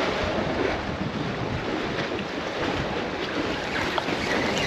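Steady wind rushing and buffeting the microphone over open sea water, with a few faint clicks.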